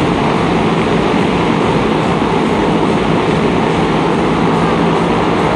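Several motorcycle engines running at high revs together inside a steel globe-of-death cage, a loud steady drone.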